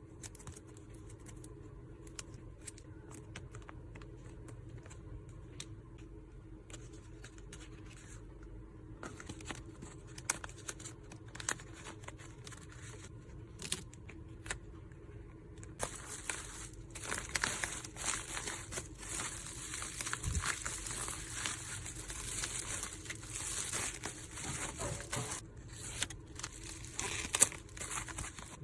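Packaging being handled during packing: light taps and clicks at first, then dense crinkling and rustling from about halfway through.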